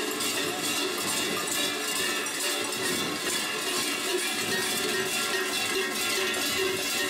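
Many large kurent bells clanging together without a break, swinging on the belts of a group of walking kurenti and jangling with every step.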